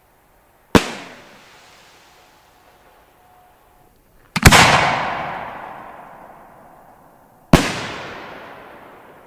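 Homemade aerial firework shells going off: three sharp bangs, about a second in, the loudest a double crack at about four and a half seconds, and another at about seven and a half seconds, each trailing off in a long echoing decay.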